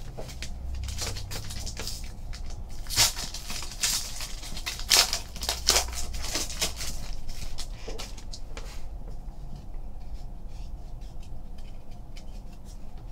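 Foil wrapper of a basketball card pack being torn open and crinkled, in sharp crackles that are loudest between about three and seven seconds in. After that come softer rustles as the cards are handled.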